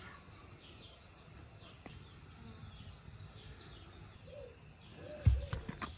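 Faint birdsong with scattered chirps and a few short calls. A single loud, low thump about five seconds in.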